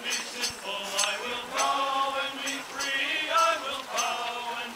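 People singing together, a slow song with long held notes, with faint high clicks recurring about twice a second.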